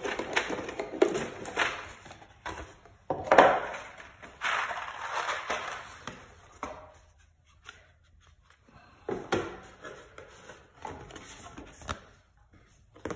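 A cardboard board-game box and its contents being handled: bursts of rustling and scraping with a few knocks as the insert and a large card sheet are lifted out, with a quieter pause a little past the middle.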